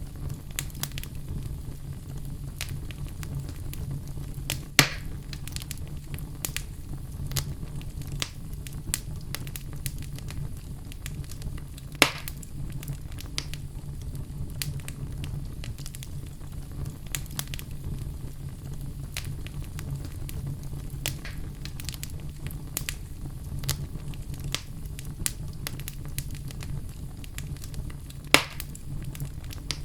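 Oak logs burning in a fireplace: a steady low rumble with constant small crackles, and three sharp, louder pops, about five seconds in, twelve seconds in and near the end.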